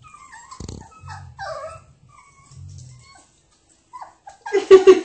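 Five-week-old puppies whimpering in faint, high, wavering cries, with a single thump about half a second in. Near the end a puppy breaks into loud, repeated yelping barks.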